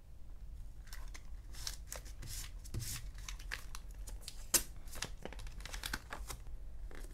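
Paper and plastic crinkling and rustling as hands handle sticker sheets and a diary page, with scattered light taps and one sharp click about four and a half seconds in.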